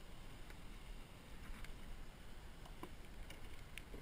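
Faint low rumble of wind and water on the kayak, with scattered light clicks and taps as the landing net and fishing gear are handled aboard.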